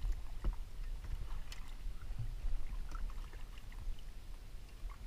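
Small knocks and taps on a fishing kayak, over a steady low rumble.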